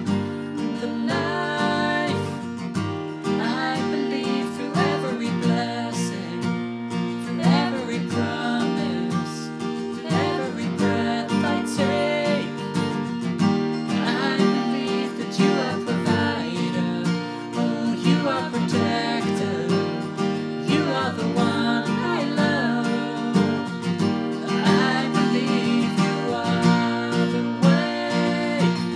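A man and a woman singing a worship song together, accompanied by a strummed acoustic guitar.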